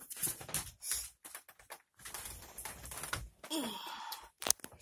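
Handling noise: irregular rustles and light clicks as the camera is moved about over the bassinet.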